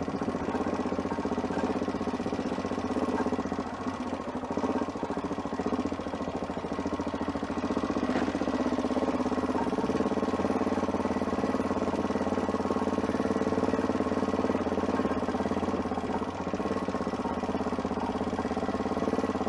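Adventure motorcycle engine running at low, fairly steady revs, with small rises and falls in pitch.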